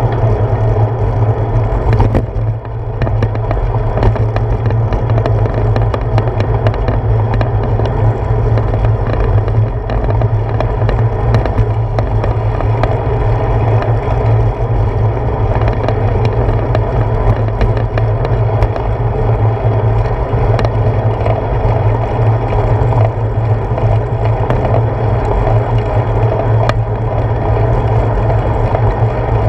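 A bicycle rolling along a paved path, heard through a handlebar-mounted GoPro Hero 4 in its case: a steady, loud rumble of tyre and road vibration carried up through the handlebar, with many small clicks and rattles from bumps in the surface.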